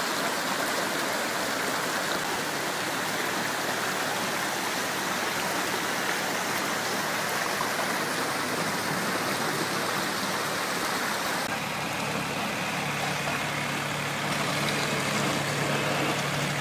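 Steady rush of fast-flowing muddy floodwater. In the last few seconds a small tractor's engine is heard running beneath the water noise.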